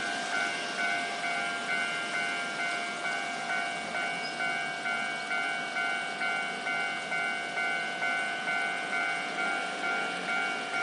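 Railway level-crossing warning bell sounding its special electronic alarm: a steady ringing tone repeating evenly about one and a half times a second, with two pitches alternating.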